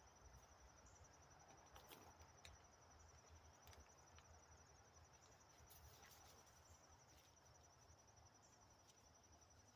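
Near silence with a faint, steady high insect trill, rapidly pulsed, and a few faint ticks around two, four and six seconds in.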